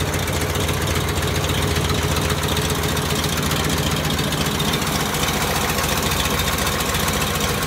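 Chevrolet C3 Corvette's V8 engine idling steadily, a close, even low rumble.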